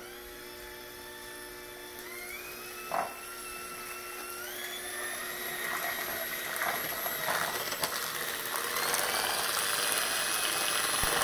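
Electric hand mixer whipping egg whites and sugar in a glass bowl: a steady motor whine that steps up in pitch twice as the speed is raised, with the whisking noise growing toward the end. A brief knock about three seconds in.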